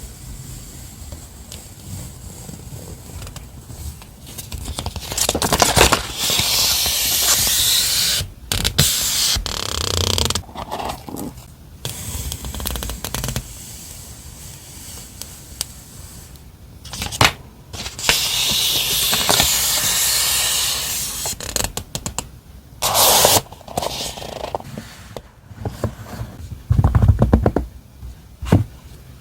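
Stationery and its packaging being handled: paper and plastic rustling and crinkling in two longer stretches, with scattered small taps and clicks.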